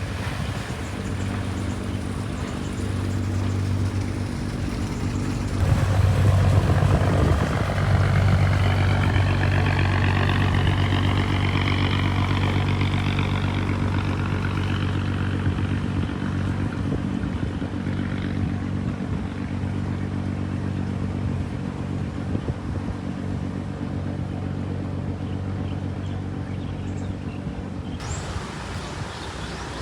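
A boat's engine running steadily with a low, even hum. It gets louder about six seconds in, and a higher whine rises in pitch between about eight and fourteen seconds in.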